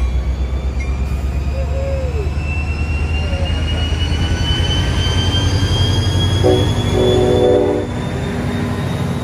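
NJ Transit diesel locomotive passing close by, its engine running with a heavy rhythmic throb under a whine that slowly rises in pitch. A short horn blast sounds about six and a half seconds in.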